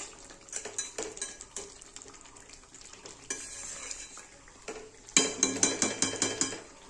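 A metal spatula scrapes and clinks against a metal kadai as thick mutton curry is stirred while it fries down in its spices (kasha). There is a faint sizzle of frying, and a quick run of clatters about five seconds in is the loudest part.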